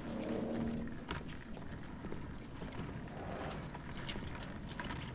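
Footsteps and the rattle of a wheeled laundry cart being pushed in, heard as irregular light knocks and clicks, after a low hum that fades out in the first second.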